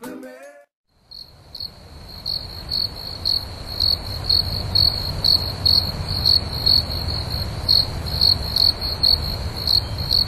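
Insects chirping: a steady high trill pulsing about twice a second, starting about a second in, over a low rumble.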